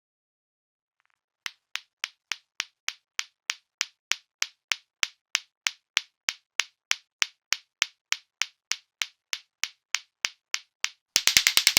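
Lato-lato clackers: two balls on strings knocking together in a steady rhythm of sharp clacks, a little over two a second. Near the end the clacks speed up into a fast, louder clatter.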